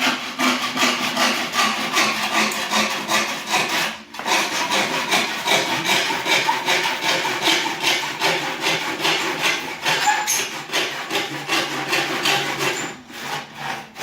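Hand saw cutting through wood in quick back-and-forth strokes, about four a second, with a brief pause about four seconds in.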